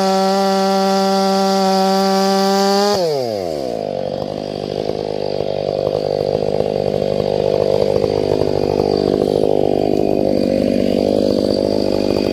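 Two-stroke chainsaw running at full throttle with a high, steady note. About three seconds in, its pitch drops sharply as the chain bites into a log, and it runs on under load, cutting through firewood.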